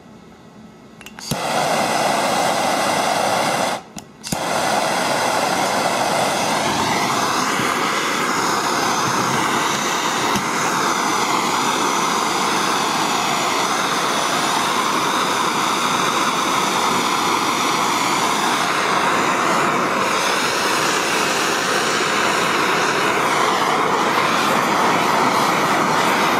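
Handheld gas torch burning with a steady, loud hissing flame as it heats a steel gear for a shrink fit onto a chilled shaft. The flame sound starts about a second in, cuts out briefly near four seconds, then runs on evenly.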